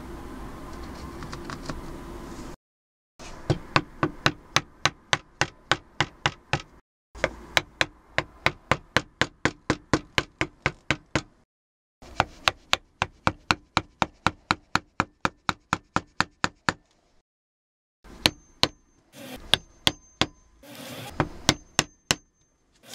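A small wood chisel struck by a mallet, chopping into a clamped wooden block: quick, even taps at about four a second in several runs separated by short pauses, with fewer, more spaced strikes near the end.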